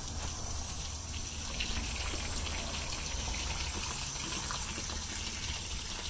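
Fresh cold water running steadily through a tankless water heater and gushing out of its flush hose, purging the descaling vinegar from the system.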